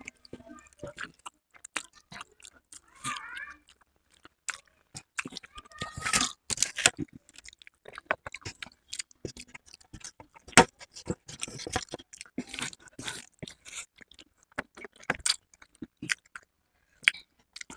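Close-up eating sounds of two people eating Maggi noodles: chewing and slurping, with many short sharp clicks and scrapes of forks on steel plates.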